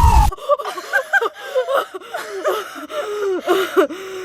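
Young women laughing and exclaiming in short, high, rising-and-falling bursts of voice, ending on one drawn-out vocal note; it sounds like a reaction to a marshmallow falling into the fire.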